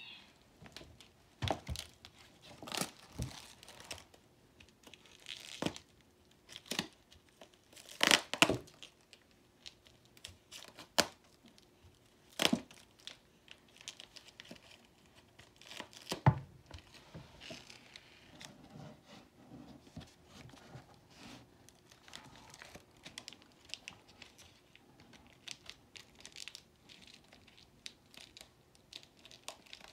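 Foam mesh fruit netting being pulled and torn apart by small hands: irregular sharp snaps and rustles, loudest about eight and twelve seconds in.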